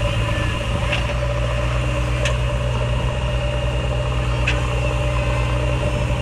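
Heavy diesel engine running steadily, with three short sharp clicks over it.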